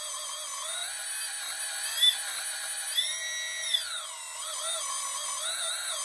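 Hydraulic pump and hydrostatic track-drive motor of an RC hydraulic excavator whining at full speed with the track off, the pitch wavering unsteadily. The pitch rises about three seconds in and drops back a second later, with a few light clicks. The owner thinks the unsteady running may mean the oil is a little low in the track drive and tank.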